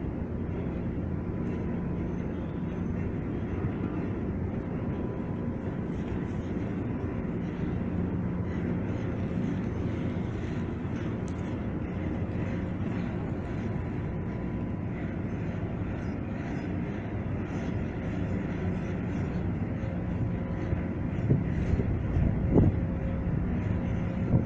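Old Niederfinow boat lift's drive machinery running while the trough moves, a steady mechanical hum with a few faint constant tones. A few sharp knocks come near the end.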